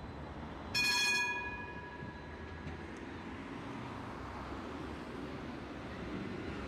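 A light-rail tram's warning bell struck once, ringing out and fading over about a second, over the steady low running noise of the tram on the rails.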